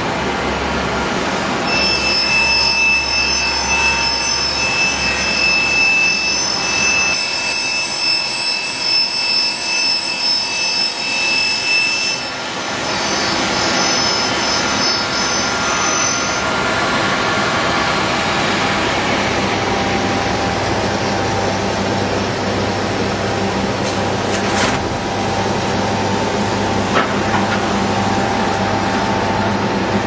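Octagonal drum honeycomb paper machine running steadily. A high whine sounds over it from about two seconds in, changes pitch briefly near twelve seconds, and stops around sixteen seconds, leaving the steady machine noise.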